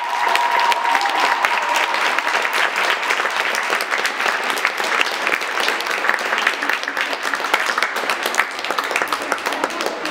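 Audience clapping steadily, a dense patter of many hands, thinning out near the end.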